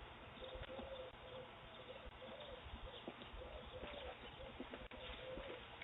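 Faint dove cooing, a string of short, low notes that rise and fall, heard through a doorbell camera's microphone.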